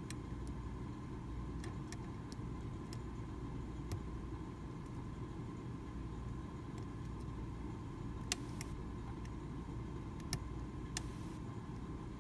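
Sparse small metallic clicks and ticks of a pick and tension wrench working the chisel-tipped pins in a Medeco original lock cylinder, about a dozen in all. The clicks come in a cluster over the first few seconds, pause, then resume with the sharpest ones after the middle, over a steady low background rumble.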